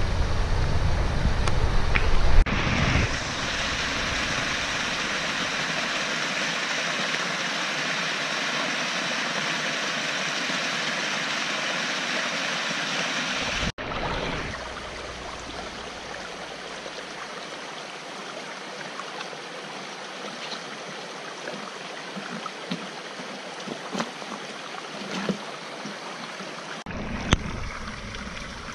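Muddy flash-flood water rushing over rocks in a wadi, a steady rush. It opens with a couple of seconds of low vehicle rumble from inside a car. About halfway through the rush becomes quieter, with small splashes and clicks.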